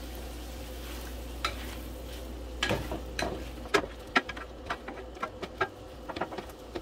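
Chicken pieces sizzling gently in a nonstick pan while a spatula scrapes and taps through them, stirring and separating the pieces. The scraping clicks are few at first and come quickly, several a second, from about two and a half seconds in.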